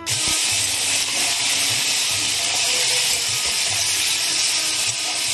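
Chopped vegetables sizzling in hot ghee in a steel kadai as they are stirred: a loud, steady hiss.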